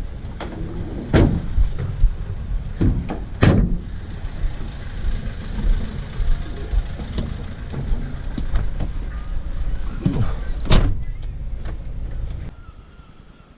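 A vehicle on the move: a steady low road-and-engine rumble with several sharp knocks, the loudest about eleven seconds in, cutting off suddenly near the end.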